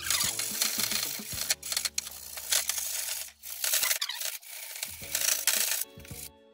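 A hand-held abrasive block scraping back and forth in quick strokes along the edges of a freshly jigsaw-cut handle slot in a white wardrobe board, smoothing the rough cut. The strokes stop near the end.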